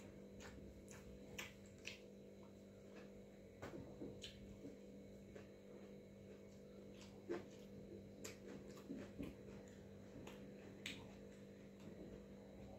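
Faint eating sounds: scattered small wet clicks and smacks of fingers mixing watery rice on a steel plate and of chewing, over a steady low hum.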